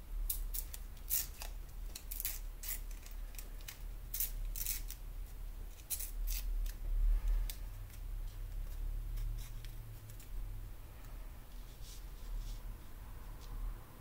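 Paper washi tape being torn by hand, a quick run of short crisp rips through the first seven seconds or so, then a few scattered ones later, over a low steady hum.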